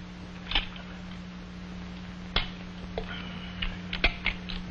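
Card play at a kitchen table: a handful of light clicks and taps from cards, cribbage pegs and glasses set down on the tabletop, several close together near the end, over a steady low hum.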